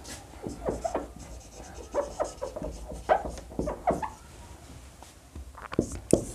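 Marker pen squeaking and rubbing on a whiteboard in a run of short writing strokes, then a brief lull and a few quick strokes near the end.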